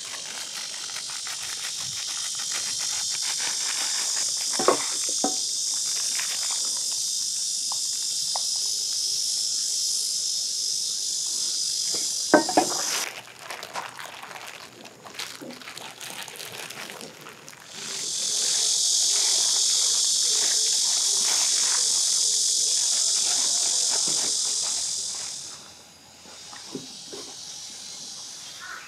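Cicadas droning in a high, steady chorus that breaks off about halfway through, starts up again a few seconds later and fades out near the end. A few sharp clinks of a utensil against a pot sound in the first half.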